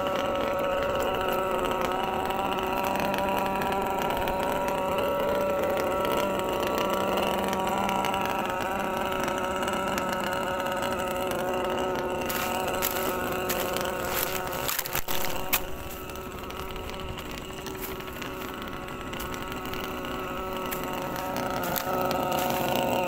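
Remote-control model barge's motor running at a steady pitch, a buzzing whine with several overtones. It gets quieter about 15 seconds in and builds back up near the end.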